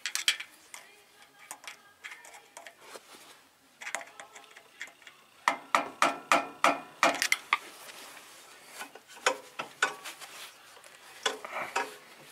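Sharp metallic clicks and clinks of hand work on small-engine parts, coming irregularly with a quick run of about four clicks a second near the middle and another cluster near the end.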